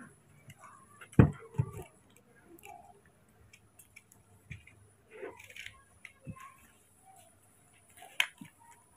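Quiet handling noise from young macaques and a hand moving about a towel-lined plastic basket: a couple of soft knocks a little over a second in, another near the end, and small taps and rustles between.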